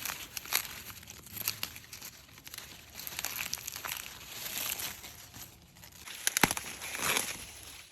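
Plant material being crinkled and torn by hand in irregular bursts of crackling, with a sharp snap about six and a half seconds in.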